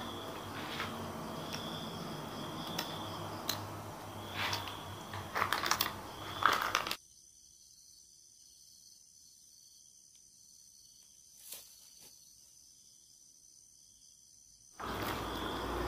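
Small clicks and crinkling from snack packets being handled at a table, over short cricket chirps repeating about once a second. About seven seconds in, the sound drops abruptly to near silence with a faint high hiss and one soft click, and the clicks and chirps return near the end.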